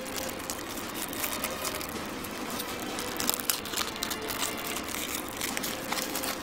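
Thin black plastic card sachet crinkling and crackling as it is torn and pulled open by hand to get the card out.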